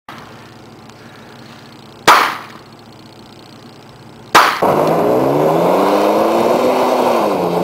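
Two gunshots from a long gun, a little over two seconds apart, each with a short ringing tail. Then a Toyota Tacoma pickup's engine revs loudly as the truck accelerates away on a dirt road, its pitch rising, dipping at a gear change about seven seconds in, and rising again.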